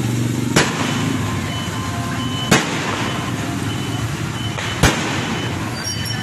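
Fireworks going off overhead: three sharp bangs about two seconds apart, over the steady din of a busy street.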